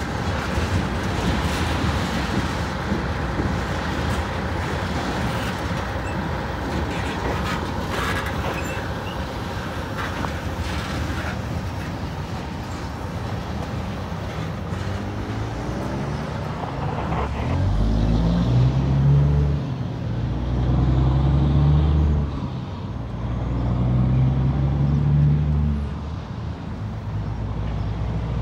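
Freight train of covered hopper cars rolling past on the rails, the steady wheel-and-rail noise easing as the train moves away. In the second half a deep engine rumble swells and fades three times.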